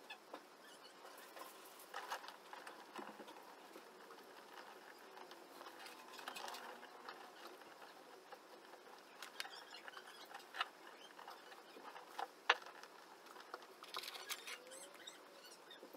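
Scattered light clicks, taps and scratchy rustling, like small parts and tools being handled, with no motor running. One sharp click stands out about twelve and a half seconds in.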